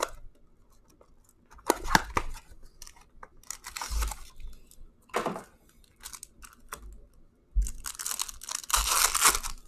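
Foil wrapper of a Bowman Chrome trading card pack being torn open and crinkled, in several short rustling bursts with a longer, louder tear near the end.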